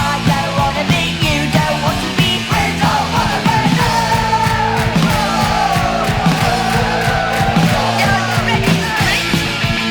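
Punk rock band recording: a fast, steady drum beat and bass under a gliding melodic lead line, in an instrumental stretch without words.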